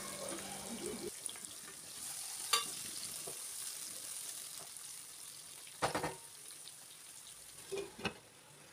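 Chopped onions and green chillies frying quietly in oil in a non-stick kadai, sizzling while a wooden spatula stirs them. A few sharp knocks of spatula and cookware on the pan, the last pair near the end as a glass lid is set on.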